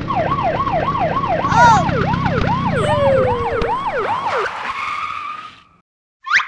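Police siren sound effect yelping in quick rise-and-fall sweeps, several overlapping, over a motor noise, with a brief screech about one and a half seconds in; it fades out after about five seconds, and a short rising squeak follows just before the end.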